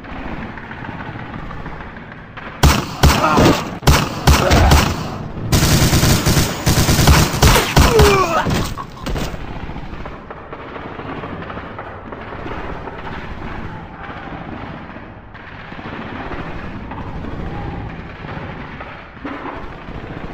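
Gunfire sound effects: a few sharp separate shots about three seconds in, then sustained rapid automatic fire until about nine seconds in. After that, a quieter steady battle background.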